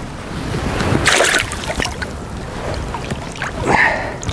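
Water splashing and sloshing as a mesh keepnet is worked by hand in shallow river water to release bream. There are two louder splashes, about a second in and near the end.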